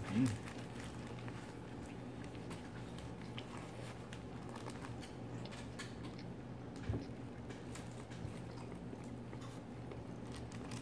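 Person chewing and biting into fast food, with small scattered clicks over a low steady hum.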